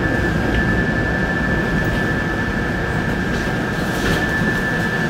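Inside an ET2M electric multiple unit running along the line: a steady low rumble from the running gear, with a constant high-pitched whine over it and a few faint clicks a little past halfway.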